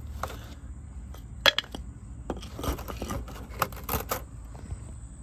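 Handling noise: a scattering of light, sharp clicks and taps at irregular intervals, the sharpest about one and a half seconds in and a cluster a little past the middle, over a steady low rumble.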